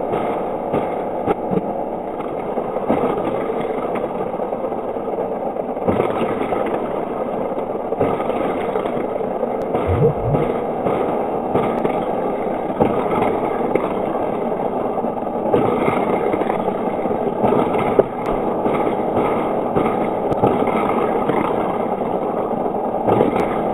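Toy race car track with cars running around it: a steady mechanical whirring drone, with a few short clicks and rattles.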